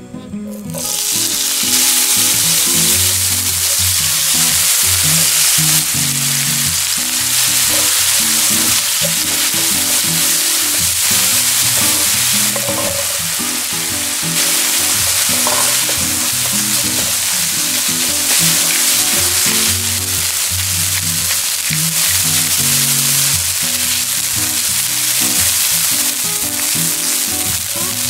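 Minced pork sizzling loudly in hot oil in a frying pan. The sizzle starts about half a second in as the meat goes into the oil, then runs steadily while it is stir-fried with green onion and onion and turned with a spatula. Background music plays underneath.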